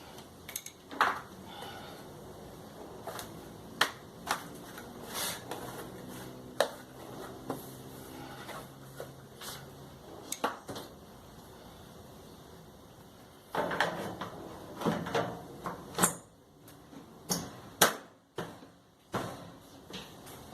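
Hand work on a clothes dryer: irregular clicks, knocks and clatter of parts and tools being handled, with a busier run of knocks about two-thirds of the way in.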